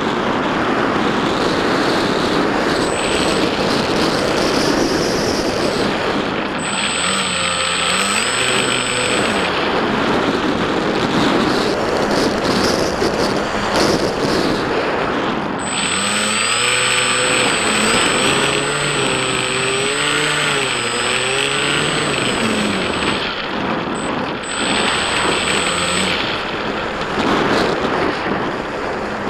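Wind rushing over the microphone of a camera mounted on a Bixler-style foam RC plane in flight, with the plane's electric pusher motor and propeller whining in several stretches as the throttle is opened and eased, its pitch wavering.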